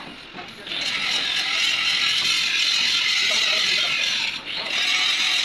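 Starter motor running on the bench, a steady metallic whirring rattle that starts abruptly under a second in, cuts out briefly about four and a half seconds in, then starts again.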